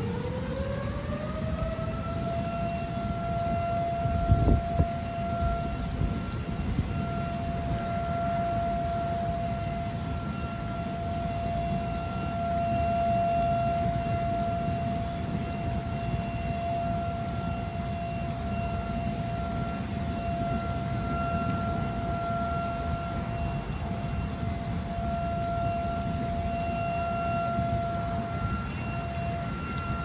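A siren winds up, rising in pitch over the first couple of seconds, then holds one steady wail, over a constant low rushing noise. There is a brief thump about four seconds in.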